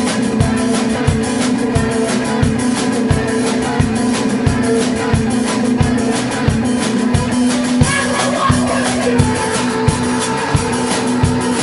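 Live rock band playing: electric guitar and drum kit, with sustained droning notes over a steady kick drum beat of about three beats a second and cymbal strokes.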